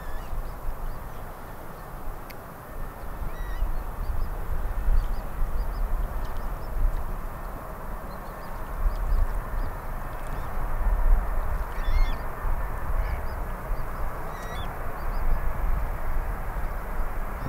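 Boeing 747's four jet engines on landing approach: a deep, steady rumble that grows louder as the airliner comes closer, with a few brief high calls over it.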